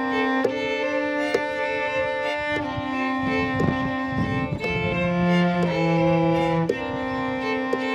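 Cello and violins playing long bowed notes together in chords that change every second or so, an instrumental string passage of a live acoustic song.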